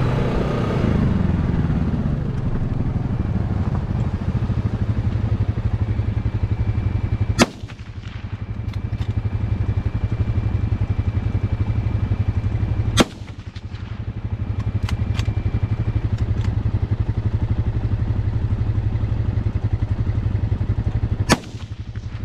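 A quad bike's engine idling with an even pulse, while a rifle is fired three times from the bike, about 7.5, 13 and 21.5 seconds in. The engine sound dips briefly after each shot, and a couple of fainter clicks follow the first two shots.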